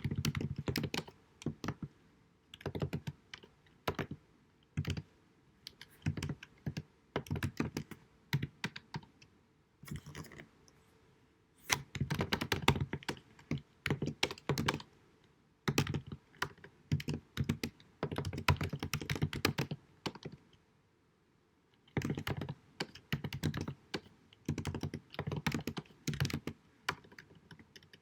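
Computer keyboard typing: rapid key clicks in bursts of a few seconds with short pauses between, over a faint steady hum, recorded at deliberately low sound quality.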